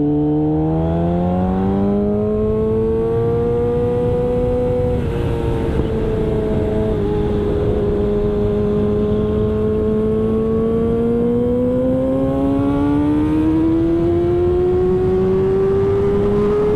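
Yamaha YZF-R6 inline-four engine under sustained throttle, its pitch climbing for about five seconds, dropping slightly, then climbing slowly again, over a steady rush of wind noise.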